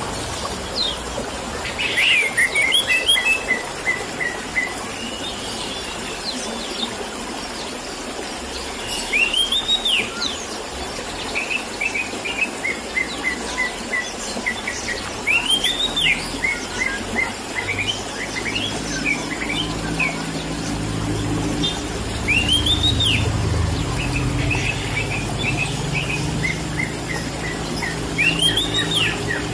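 Orange-headed thrush singing in full voice, repeating the same phrase about every six to seven seconds: a rising-and-falling whistled note followed by a run of short, quick notes. It sings over a steady rush of trickling water.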